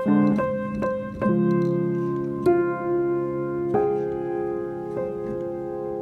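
Background piano music: a few quick notes at the start, then slow, held chords.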